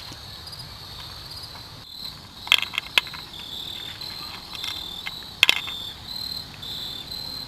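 Insects chirring steadily in the background, a high pulsing buzz. A few sharp clicks sound about two and a half and three seconds in, and again at about five and a half seconds.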